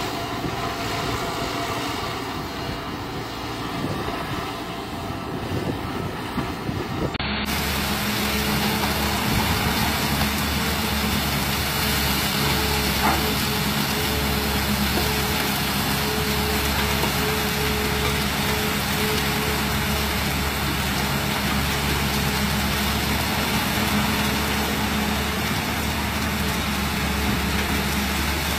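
Excavator diesel engine running as a Kobelco SK140-8 digs sand. About seven seconds in, the sound cuts to a louder, steadier engine drone from a Hyundai R220-9S loading sand into a hopper.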